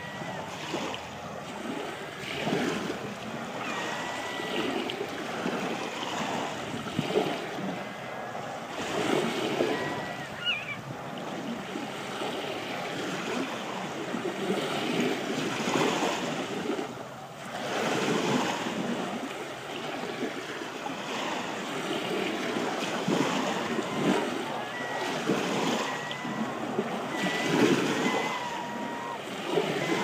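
Small waves washing and lapping over a sandy, pebbly shore, swelling and ebbing every few seconds, with wind buffeting the microphone. Faint gull calls come through now and then.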